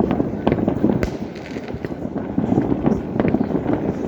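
New Year fireworks salute: a dense, unbroken run of many overlapping bangs and crackles.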